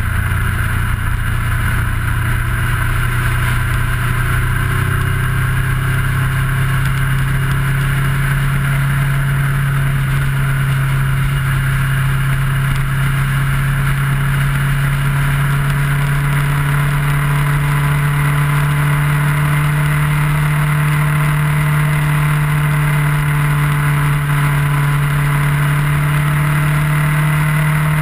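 Kawasaki ER-6f's 649 cc parallel-twin engine running steadily at cruising speed. Its pitch steps up about five seconds in, then creeps slowly higher as it gently gains revs. Under it is a constant rush of wind and road noise.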